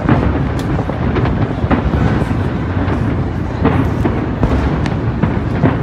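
Aerial fireworks bursting in quick succession: a continuous low rumble with many sharp bangs and crackles through it.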